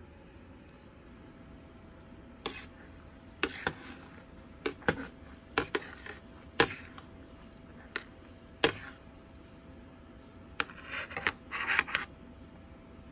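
A metal spoon knocking and clinking against a stainless steel cooking pot while stirring: about a dozen sharp, irregular clinks. It ends in a quick burst of clatter and scraping near the end.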